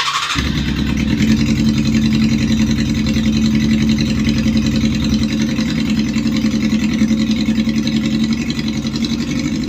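Honda CB Super Four 400 cc four-cylinder motorcycle engine running through an SC aftermarket exhaust, idling at a steady speed. A short burst of noise comes just at the start, before the engine sound settles in.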